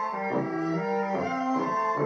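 Background music of bowed strings playing held notes that change every second or so.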